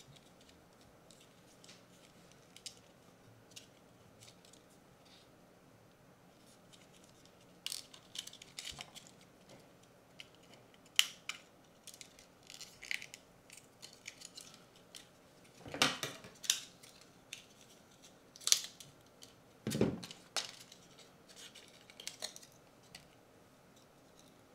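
Small plastic parts and wires of a PO-80 Record Factory kit being handled and fitted: scattered light clicks, taps and brief rustles, few at first and more frequent from about eight seconds in, with several sharper clicks.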